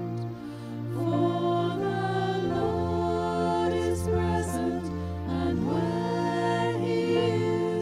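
Slow music of long held chords, with a melody line that slides up and down in pitch between notes.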